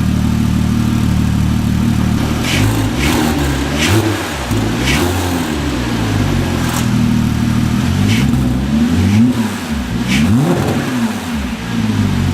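Porsche 3.8-litre flat-six through an aftermarket Cargraphic exhaust, idling and then blipped about six times. Each rev climbs and drops back quickly.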